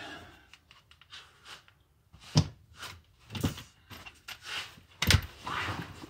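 Hand tools being handled: a few sharp metal clinks and knocks, the loudest a little past five seconds in, with rustling and shuffling between.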